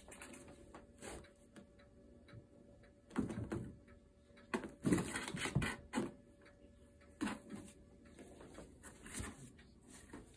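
Cardboard box being scraped, bumped and rustled by two kittens playing in and around it: irregular knocks and scratchy rustles, busiest from about three to six seconds in.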